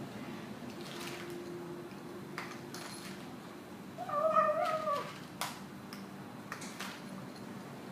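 A domestic cat grumbling as it eats: a low, steady grumble, with one wavering, meow-like call about four seconds in and a few short, sharp clicks.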